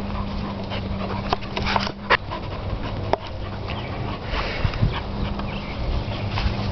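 Dogs playing tug with a rubber ring toy: dog noises with a few sharp clicks, over a steady low hum.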